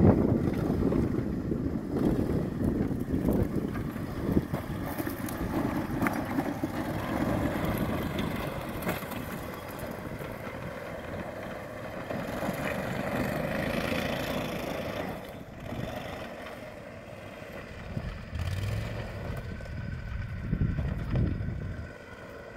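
Engine of a Max Buffalo 6x6 amphibious ATV running under load as it crawls over rough rocky ground. Its note swells and fades with the throttle, climbing in pitch about two-thirds of the way through.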